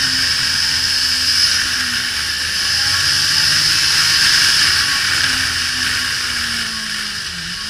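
Suzuki GSX-R1000 K5 inline-four ridden hard, heard from an onboard mount. Steady, heavy wind rush dominates, with the engine note underneath sliding slightly in pitch. Near the end the note drops and the whole sound eases off.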